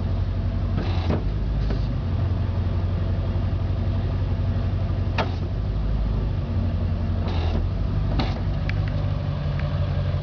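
International 4700 wrecker's engine idling steadily, with a few brief swishing noises over it.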